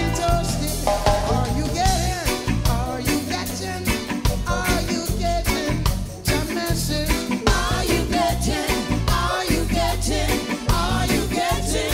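Background music: a song with a singer over a steady bass beat.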